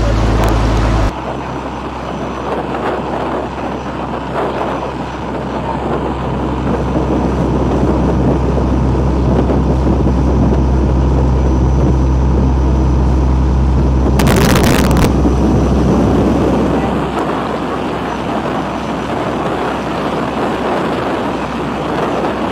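A boat's engine running steadily under the rush of wind and water while under way. The engine's tone changes abruptly about a second in, and a brief loud rush of noise, a gust or splash, comes about two-thirds through.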